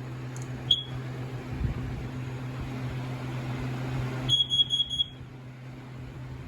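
Kidde carbon monoxide alarm being tested: one short high beep about a second in, a hiss, then a quick run of four high beeps, the four-beep pattern that signals carbon monoxide. A steady low hum runs underneath.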